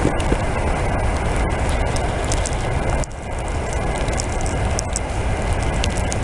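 Wind buffeting the microphone outdoors in a snowstorm: a steady, gusting rumble, with scattered small clicks and a brief dip about three seconds in.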